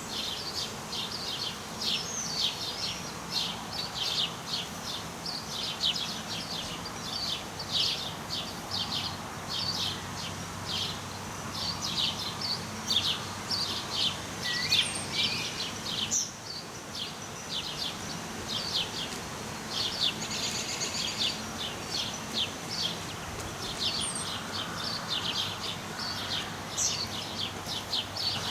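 Small birds chirping: a quick, continuous run of short, high chirps, with a few higher notes scattered among them.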